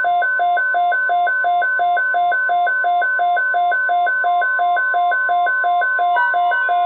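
Weather radio alert: the steady 1050 Hz NOAA Weather Radio warning tone sounds under a radio's two-pitch alternating alarm beep, about three beeps a second. This signals an incoming alert message. Near the end, other radios' alert tones join in.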